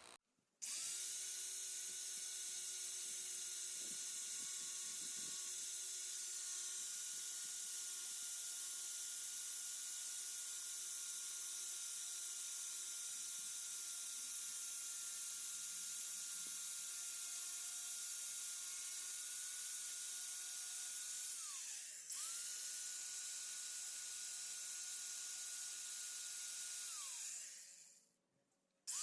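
Electric angle grinder fitted with a paper disc, running at full speed with a steady high-pitched whine. About 21 seconds in it slows briefly and speeds back up. Near the end it winds down to a stop, its pitch falling.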